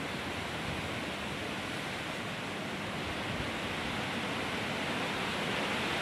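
Strong wind rushing through trees and leaves: a steady rushing noise that grows slightly louder toward the end.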